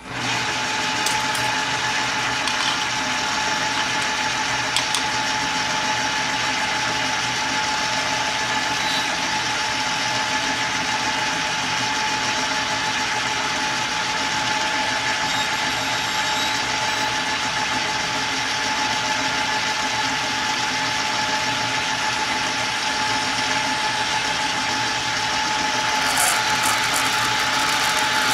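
Small metal-turning lathe switched on and running steadily with a steady whine while it bores out the inside of a brass crown wheel blank. The sound grows a little louder and harsher near the end.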